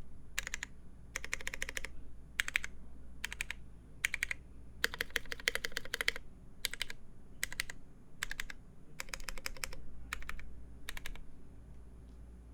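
Typing on a Noxary 268.1 mechanical keyboard with lubed Gateron Brown tactile switches, a full polycarbonate plate and GMK keycaps: rapid keystrokes in short bursts like words, with brief pauses between them, stopping near the end.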